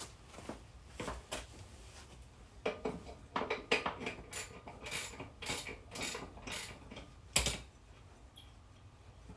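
Metal tools and bolts clinking and knocking against each other in irregular clicks while parts are being unbolted from the car chassis, with one heavier knock about three-quarters of the way through.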